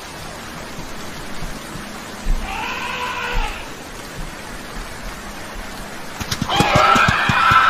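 Steady rain hiss with a single drawn-out animal cry, rising then falling, about three seconds in. From about six seconds a louder, busy run of animal calls and sharp clicks starts.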